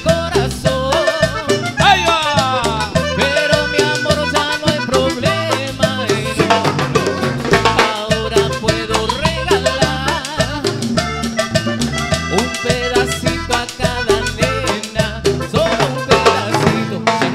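Live band playing upbeat Latin dance music, with drums and a bass line keeping a steady beat.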